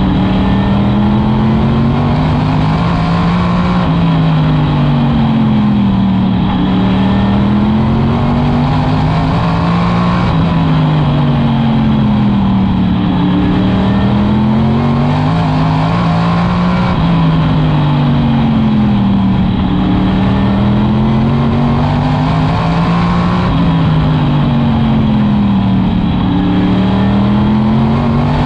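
Modified race car's V8 at racing speed, revving up and backing off over and over, about once every six to seven seconds, as it accelerates down the straights and lifts into the turns.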